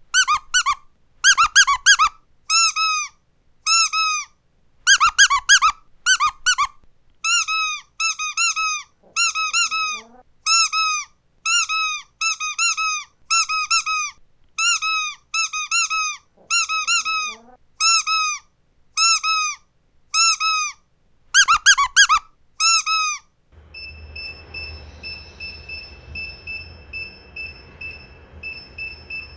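Squeaky dog toy squeezed over and over, mostly in quick pairs and triplets. Each squeak is short and pitched, rising and then falling. About three-quarters of the way through the squeaking stops, and a fainter steady high tone with a low hum is left.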